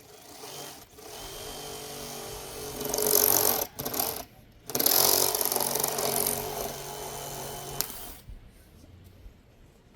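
A handheld power tool's motor runs in two long stretches with a brief stop between them, growing louder and hissier at times as it bites into material.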